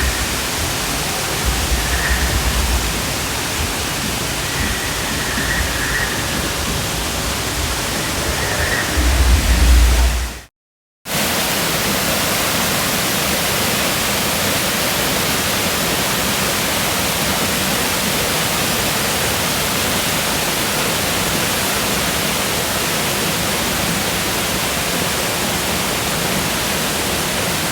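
Steady rush of water, with low rumbling bursts in the first ten seconds; the sound drops out for about half a second around ten seconds in, then the rush carries on evenly.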